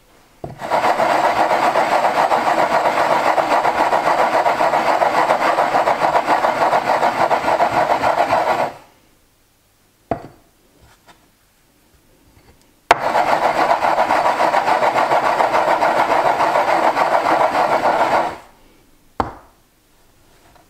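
The rim of an upturned glass cup scraping round and round on a floured wooden cutting board as it is turned over a ricotta patty to shape it: two long stretches of steady, rough rubbing, the first about eight seconds long and the second about five. A short knock follows each stretch.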